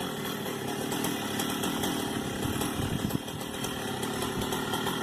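Chainsaw engine running steadily while cutting up a tree, with a brief knock about three seconds in.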